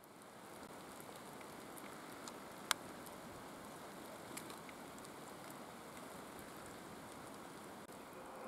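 Faint steady hiss of outdoor background noise with scattered light clicks and crackles; one sharper click about two and a half seconds in.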